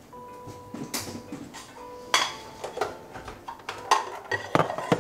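Clatter of a waffle maker and its plates being handled: a string of sharp clicks and clunks of hard plastic and metal, with the loudest knocks in the second half.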